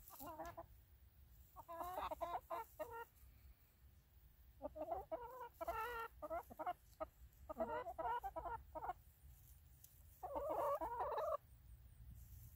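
Hens clucking and chattering in short bouts of quick, wavering notes, with a longer, louder run of calls near the end.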